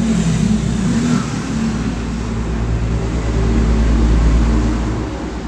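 A car engine revving, played back as a sound effect; it swells to its loudest about four seconds in and then falls away.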